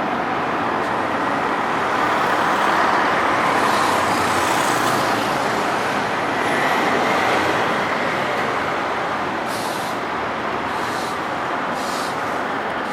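Steady road traffic noise with vehicle engines running, and a few short hisses about once a second near the end.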